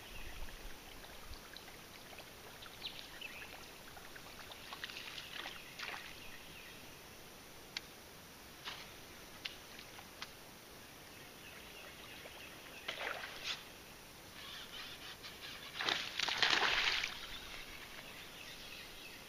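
Water splashing, loudest and longest about three-quarters through as an alligator surges through the shallows toward the bank, after a quieter splash or two and a few sharp clicks. Birds chirp faintly in the background.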